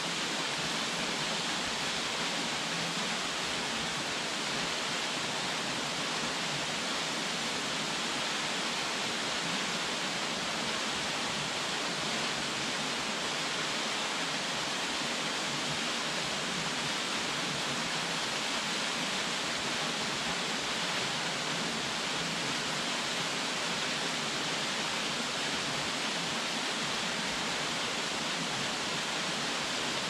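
Minoh Falls, a tall, narrow waterfall, plunging into its plunge pool: a steady, even rush of falling water that does not change.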